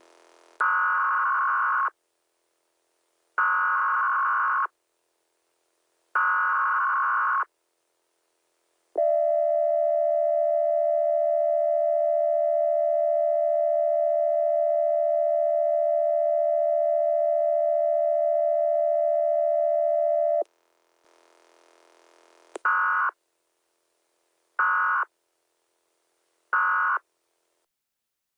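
Emergency Alert System broadcast tones: three screechy SAME data bursts about a second apart, then the steady two-tone attention signal for about eleven seconds, pitched lower than the usual tones, then three short end-of-message data bursts near the end.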